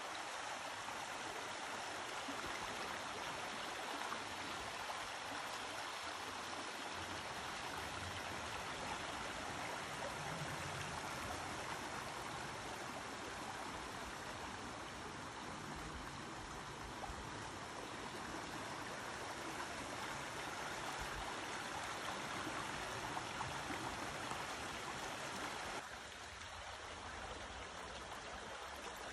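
Shallow rocky woodland stream rushing steadily over stones. About 26 seconds in the sound steps down a little quieter.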